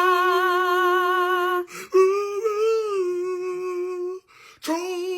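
A voice holding long, steady notes with a slight waver, three in a row separated by short breaks, in the manner of a carol being sung or howled along.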